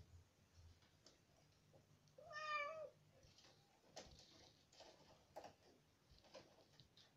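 A single short meow-like animal call about two seconds in, over near silence with a few faint ticks.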